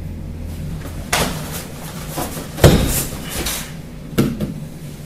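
A martial-arts throw demonstrated on padded mats: a sharp smack about a second in, a heavy thud of a body landing on the mat near the middle (the loudest sound), and another smack about four seconds in, with scuffling of feet and clothing between them.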